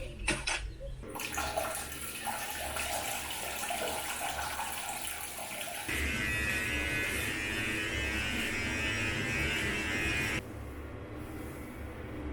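Water running from a tap in a steady rush, growing louder and brighter about six seconds in, then shut off suddenly about four seconds later.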